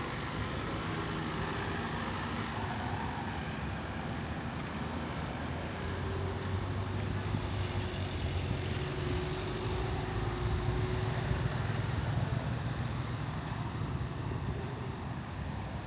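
Street traffic: motor vehicles running past with a steady hum of engines and tyre noise, growing a little louder in the second half as a vehicle goes by closer.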